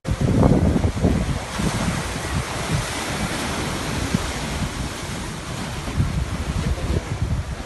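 Rough sea surf breaking and washing over rocks and a low seawall, with strong wind buffeting the microphone in gusts; loudest about half a second in.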